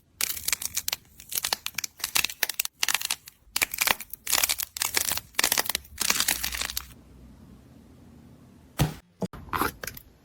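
Slime being squeezed and pressed by hand, making dense crackling clicks for about seven seconds. It then goes quieter, with a few sharp crackles near the end.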